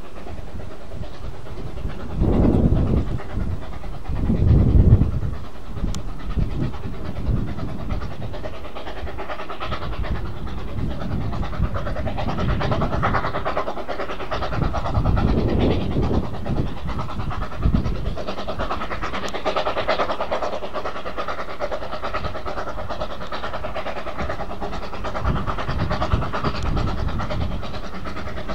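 Steam train running: a steady clatter and rumble of wheels on rail, with a few heavy low chuffs from the locomotive, the loudest about two and five seconds in.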